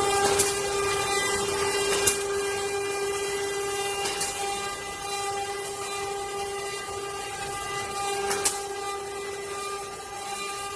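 CNC wood-carving router's spindle running at a steady speed, a constant high whine with overtones, with a few sharp clicks.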